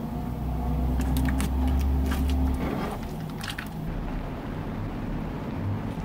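Yellow slime being stretched and squeezed by hand, giving sharp wet pops and crackles about one to three and a half seconds in. A steady low hum runs under the first half.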